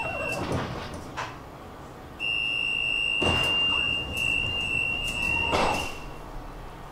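Tram door warning tone, a steady high beep, stops just after the start and sounds again for about four seconds. Clunks of the tram's sliding doors moving come with it.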